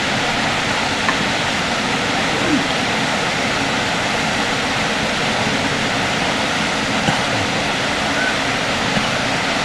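Shallow mountain stream flowing over a stony bed: a steady, unbroken rush of water.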